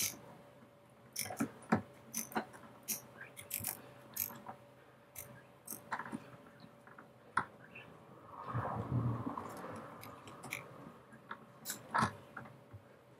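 A 6 mm tap being turned by hand into a drilled hole in the end of a metal bar, giving irregular sharp clicks and creaks as it cuts the thread. A louder rough rasping stretch comes about nine seconds in.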